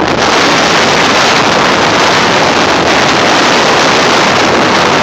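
Steady, loud rushing of wind over the microphone on a motorboat under way.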